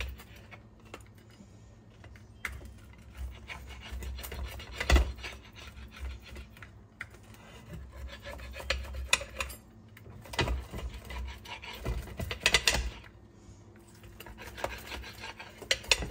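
Pizza cutter scraping and rubbing across a plate while a baked pizza is sliced, with sharp knocks of the cutter and plate every few seconds.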